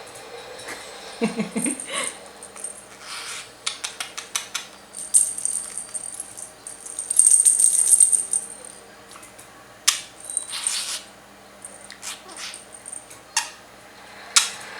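Small rattles and clicks from a budgie playing with a toy, with a longer high jingle from about five to nine seconds in.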